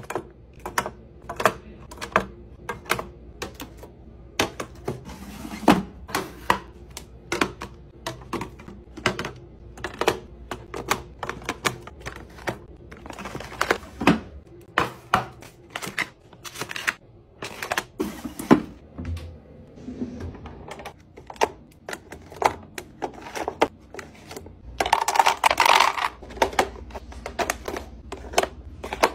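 Toiletries being set down and slotted into clear acrylic organizer bins and drawers: a run of irregular plastic clicks and clacks, about one or two a second, with a longer rustling or scraping sound about 25 seconds in.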